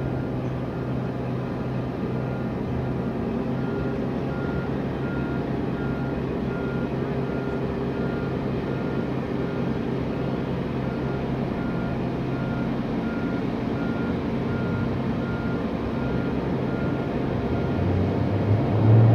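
A vehicle's reversing alarm beeping steadily, about two beeps a second, over a steady low engine rumble. The rumble swells briefly near the end.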